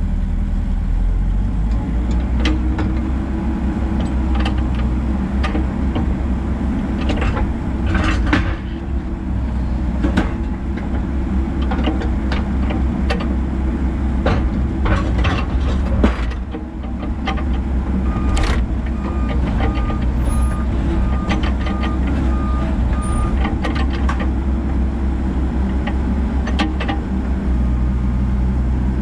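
Komatsu PC88MR-8 excavator's diesel engine running under load, heard from inside the cab, as the machine tracks along a trailer deck and down the ramps, with repeated clanks and knocks from the steel tracks on the deck and ramps. A beeping alarm sounds for a few seconds past the middle.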